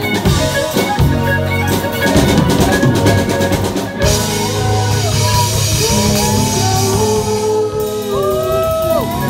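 Live rock band playing. Drum kit beats and cymbals ride over a steady bass for the first four seconds, then sung notes are held and slide between pitches from about five seconds in.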